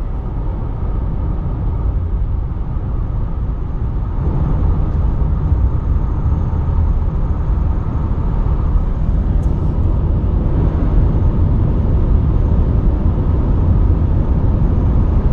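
Steady low rumble of a car driving at speed, road and wind noise, growing a little louder about four seconds in.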